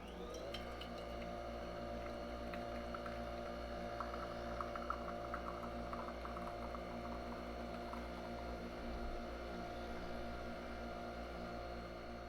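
Nespresso Vertuo Pop+ coffee machine running a brew cycle: its capsule-spinning motor spins up with a rising whine in the first half-second, then runs at a steady pitch with a hum. Light crackling clicks come and go between about two and six seconds in.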